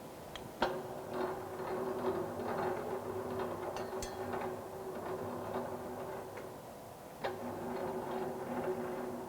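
Hand-cranked plate-rolling machine turning as a steel sheet is rolled into a cylinder: gears and rollers ticking and clicking under a steady tone. The cranking starts about half a second in, stops briefly past the middle and starts again.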